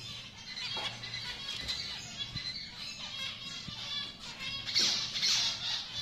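A small flock of caged zebra finches chirping and calling, with many short nasal notes overlapping. The calling is busiest and loudest about five seconds in.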